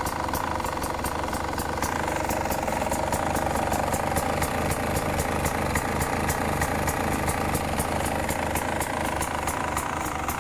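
Beta 300 RR two-stroke single-cylinder motorcycle engine idling steadily, with a light regular ticking about four or five times a second.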